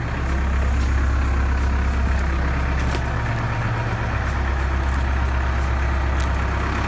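2001 New Holland LB75B backhoe's diesel engine idling steadily, with a few faint clicks over it.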